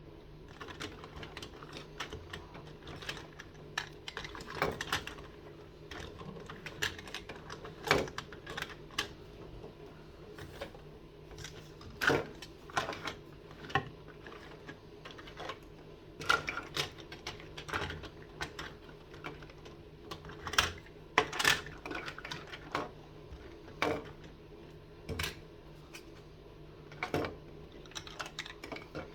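Small toys being handled, tapped and set down: irregular clicks and knocks, with a few louder ones scattered throughout, over a steady low hum.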